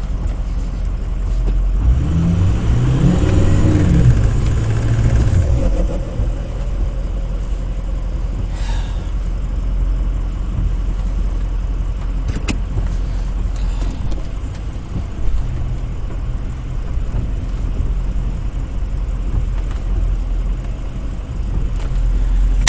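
Ford F-250 pickup's engine revving up and back down a couple of seconds in, then running steadily under load on a slippery mud climb, where the driver says the truck is slipping because its locker isn't engaging.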